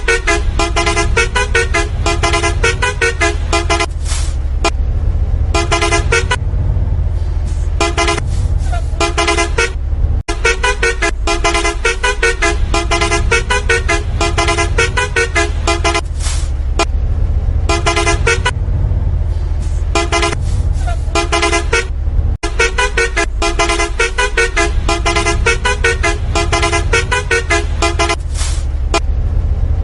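Vehicle sound effects: a steady low engine drone under quick, rhythmic horn toots that jump between pitches. The pattern repeats as a loop about every twelve seconds.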